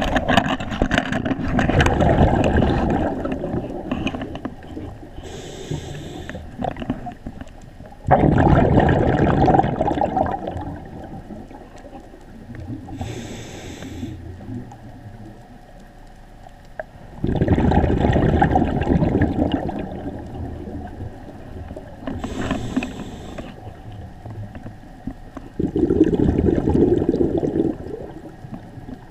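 Scuba diver breathing through a regulator underwater: a short high hiss on each inhalation, then a long bubbling rush of exhaled air. Four slow breaths, about one every nine seconds.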